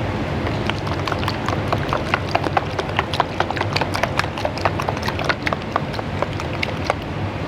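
A metal ladle clinking against a wok in quick, irregular strikes, several a second, over the steady low noise of the wok burner.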